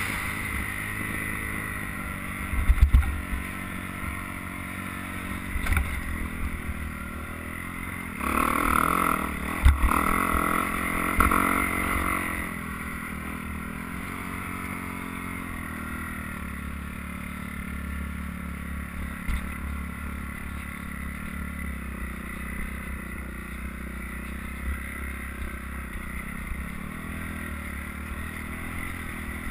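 Dirt bike engine running steadily on a trail ride, rising louder for a few seconds about a third of the way in as the throttle opens. A few short thumps come through as the bike rides over the rough ground.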